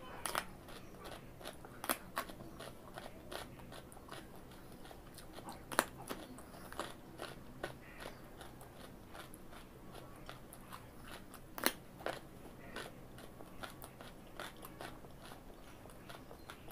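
Raw carrot being bitten and chewed close up: a few loud, sharp crunches as pieces snap off, with many smaller crunches of chewing in between.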